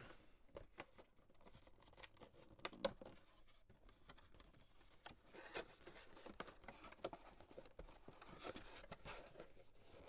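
Faint rustling and scattered light clicks of hands handling a sealed trading-card box and its wrapping.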